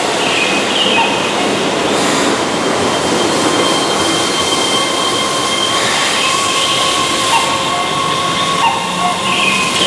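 Keihan 13000-series electric commuter train starting to pull away from a station platform: a steady high whine from its traction motors over a constant loud hiss of train and wheel noise.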